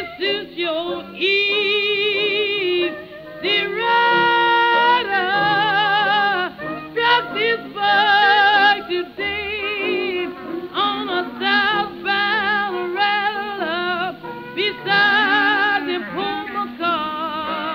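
1920s blues band playing an instrumental chorus: horns holding notes with wide vibrato over a steady rhythm section. The sound is dull and narrow, as on an old 78 rpm record.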